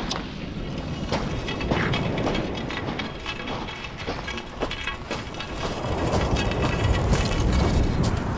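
Footsteps crunching on a shingle beach, a quick run of crackling clicks, with wind buffeting the microphone and waves washing over the stones.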